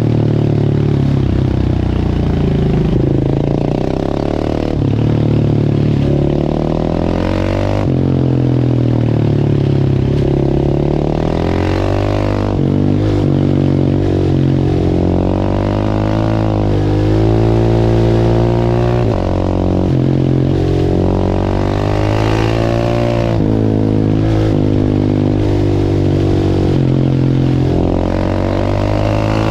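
Big single-cylinder supermoto engine (690 cc LC4 class) being ridden, its revs climbing and dropping again and again as it shifts through the gears.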